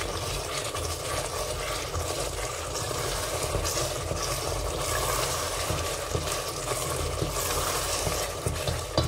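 Tomato sauce sizzling and bubbling in a stainless steel pot while a wooden spoon stirs it, scraping through the sauce. A sharp knock near the end.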